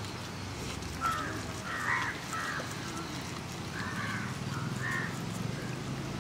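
Crow cawing repeatedly: a string of about six short caws spread over a few seconds.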